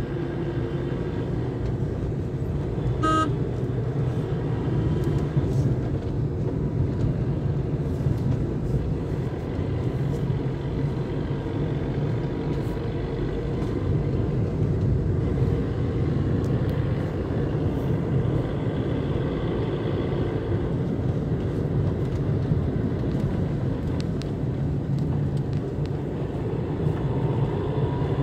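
Steady engine and tyre noise of a vehicle driving along a road, with one brief horn toot about three seconds in.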